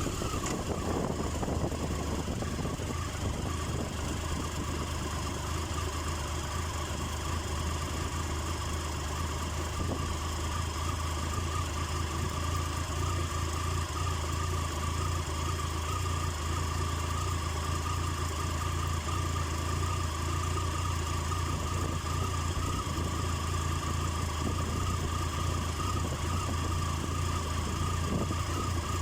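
Triumph Tiger 1050's inline-triple engine idling steadily with the bike at a standstill.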